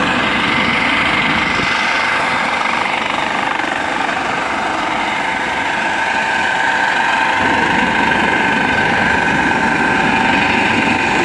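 Coast Guard helicopter hovering low over the water: fast rotor chop under a steady high turbine whine.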